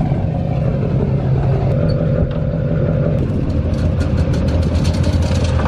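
Four-wheeler (ATV) engine running on the trailer; about three seconds in its sound deepens and gets louder, with a fast clicking over it.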